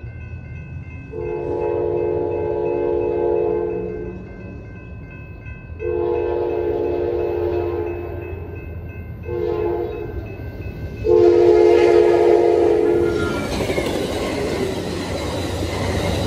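Amtrak passenger locomotive's horn sounding the grade-crossing signal: two long blasts, a short one and a final long one. Near the end the rumble of the train passing the crossing builds up and takes over.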